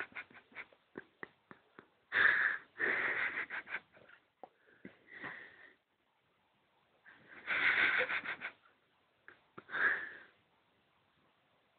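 A small child snoring: a run of short clicks in the first couple of seconds, then several long, noisy breaths with quiet pauses between them.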